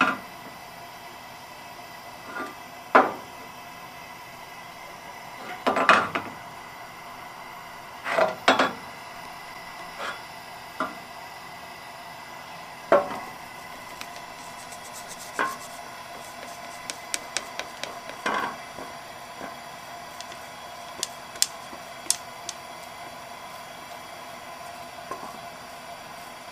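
Wooden chopsticks tapping and scraping against a metal frying pan, and the pan knocking as it is handled on the gas range, while eggs are stirred and folded into an omelette. The knocks come irregularly, a second or a few apart, with a quick run of small taps in the middle, over a faint steady hum.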